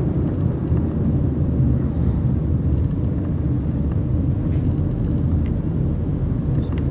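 Car road and engine noise heard from inside the cabin while driving: a steady low rumble.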